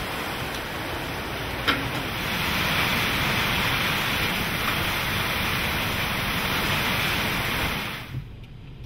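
Strong rear-flank-downdraft wind and rain of a supercell rushing past, buffeting the microphone in a steady heavy roar of noise. A single sharp knock sounds a little under two seconds in, and the noise drops off suddenly near the end.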